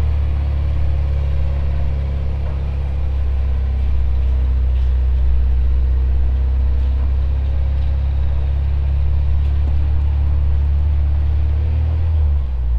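Audi RSQ concept car driving slowly with a steady low rumble that changes slightly near the end.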